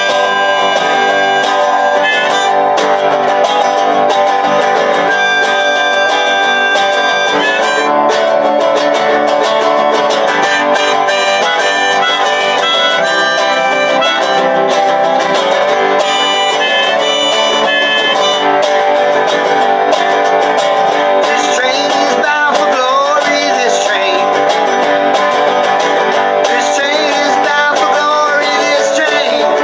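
Harmonica played in a neck rack over a strummed resonator guitar and a banjo. This is the instrumental opening of a traditional folk tune, with the harmonica holding and bending notes.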